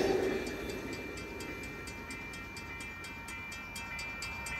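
Railroad crossing bell ringing with rapid, evenly spaced strikes while the crossing lights flash. The rumble of the passing train fades out during the first second.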